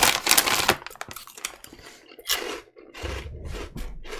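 A brief rustle at the start, then a person biting and chewing crunchy snack chips in a few irregular crunches.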